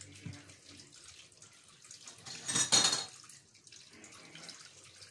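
Water and suds at a kitchen sink as a child scrubs dishes with a soapy sponge, with one louder rush of water lasting under a second about halfway through.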